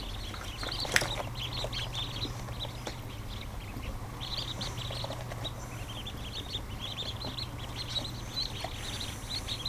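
A crowd of newly hatched ducklings peeping constantly, many short high chirps overlapping, over a steady low hum. A single sharp click about a second in.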